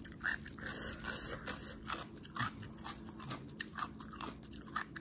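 A person chewing a mouthful of chewy stir-fried instant noodles close to the microphone: irregular wet mouth clicks and smacks, with a short hiss about a second in.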